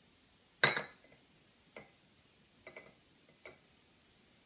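Glassware being handled on a wooden table: one sharp knock of glass against glass or wood less than a second in, then a few light taps and clinks.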